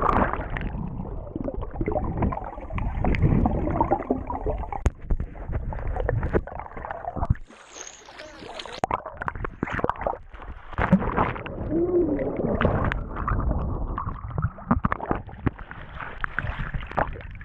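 Swimming-pool water heard from underwater: muffled rushing and gurgling with scattered knocks as bodies move through it. It clears briefly about eight seconds in as the surface is broken, and there is splashing near the end.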